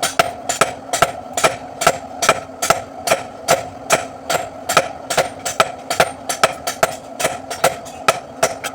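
Blacksmith's hammer striking a steel da blade on an anvil in a steady run of blows, about three to four a second, with the metal ringing after each strike.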